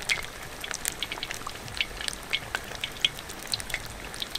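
Battered pork belly pieces deep-frying in oil in a kazan at a moderate boil: a steady sizzle full of quick, sharp crackles and pops.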